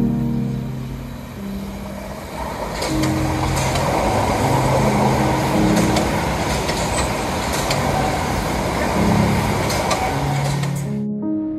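Southeastern Class 377 Electrostar electric multiple unit passing close by: the rush of its wheels on the rails builds about two and a half seconds in and holds, with a few sharp clicks, until it cuts off abruptly near the end. Background music with a melody plays underneath throughout.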